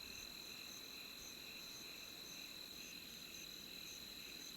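Faint, steady insect calling: a constant high-pitched buzz with a shorter pulsed chirp repeating a few times a second.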